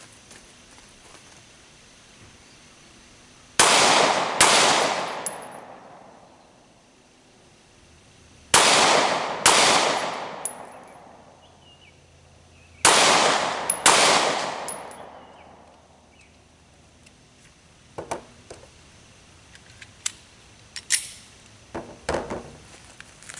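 Glock 43 single-stack 9mm pistol fired as three double taps, six shots in all. The two shots of each pair come just under a second apart and each report echoes and dies away over about two seconds, with the pairs about four to five seconds apart. A few light clicks and knocks follow near the end.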